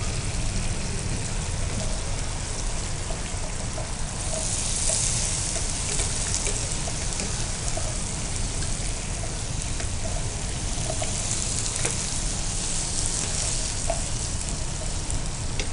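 Frying food sizzling in hot pans as fried corn Manchurian balls are stirred and tossed through sauce, with a few light clicks of utensils against the pan. The sizzle swells about five seconds in and again near the end.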